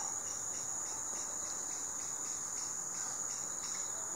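A steady, high-pitched insect trill that continues without a break.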